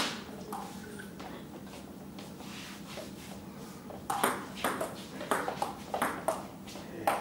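Table tennis rally: the ball clicks off the bats and the table top in quick alternation, about three hits a second, starting about four seconds in after a quiet lead-up.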